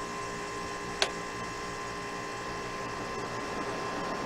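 Haier window air conditioner running with a steady mechanical hum, with a single sharp click of its fan speed switch about a second in.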